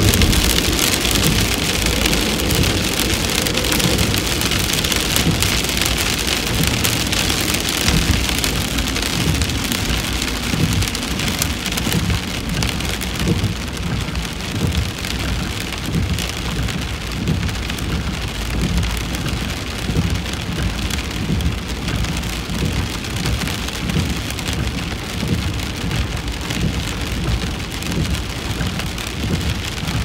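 Rain pattering steadily on a car's roof and windscreen, heard from inside the cabin, with a low rumble underneath. The high hiss of the rain thins out a little after about twelve seconds.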